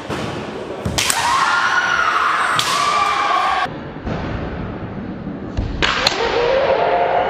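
Kendo fencers' kiai shouts: two sharp, sustained yells about a second and a half apart, then a longer one near the end as the fencers close in. During that last yell a bamboo shinai gives a sharp crack as it strikes the opponent's dō (torso armour).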